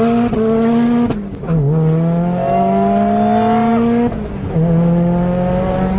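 Nissan S15's SR20 four-cylinder engine under hard acceleration through a custom-made exhaust, heard from inside the cabin. The pitch climbs steadily in each gear and drops at upshifts about a second in and about four seconds in.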